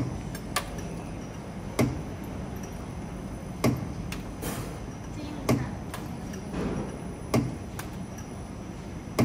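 CNC camless spring forming machine running in production, forming 1.4 mm wire into clip springs: a sharp metallic clack about every two seconds, one each cycle, over a steady machine hum, with lighter clicks between the clacks.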